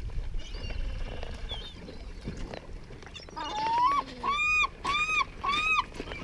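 A gull calling: one drawn-out call followed by three short arched yelps in quick succession. Fainter, higher bird calls come before them.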